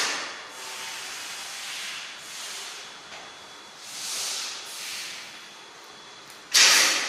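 Hissing noise that comes in bursts: softer swells in the middle, and one sudden loud burst near the end that fades over about half a second.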